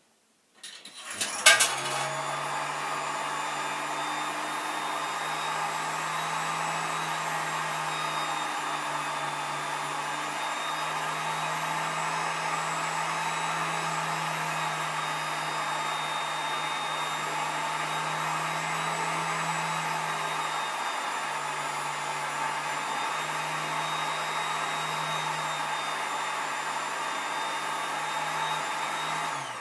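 Electric motor and gearing of a coin-operated working model running with a steady whir and low hum, starting with a sharp click about a second and a half in and stopping near the end.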